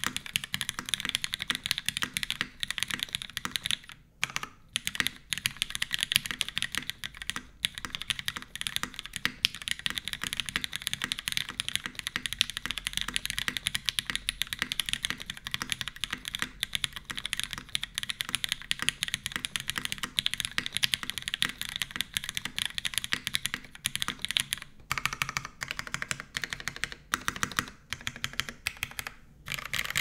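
Steady fast typing on a custom mechanical keyboard with lubed, filmed Cherry MX Black linear switches in a top-mounted full aluminium plate with no foam dampening, under GMK ABS keycaps: a dense stream of keystroke clacks, broken by a few brief pauses.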